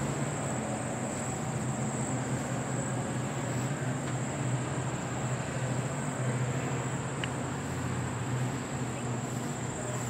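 Insects chirring in a steady high-pitched chorus, over an even rushing noise and a low steady hum.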